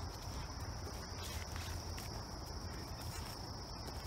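A steady, high-pitched insect chorus droning unbroken in summer woodland, with faint rustling of footsteps through undergrowth and a low rumble beneath.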